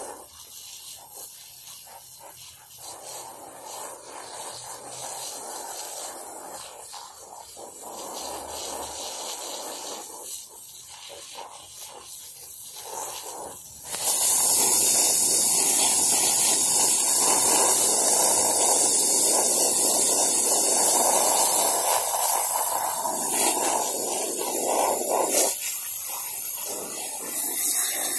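Water from a garden hose spraying and spattering onto wet deer hides on the grass, washing off loose fur and tissue. About halfway through, the hiss of the spray jumps suddenly much louder as it plays close by, and stays loud.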